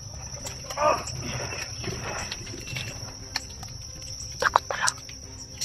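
Insects drone steadily at a high pitch. An unidentified animal gives a wavering call about a second in and two short calls near the end.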